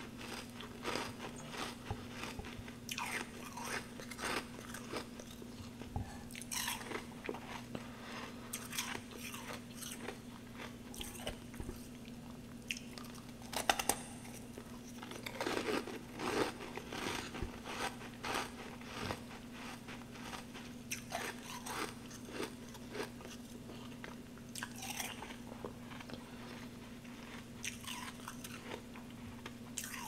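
Mouth-close crunching and chewing of packed humidifier frost snowballs: irregular crisp crunches as the frost is bitten and chewed. The frost is wet, not the dry, squeaky kind. A steady low hum sits underneath.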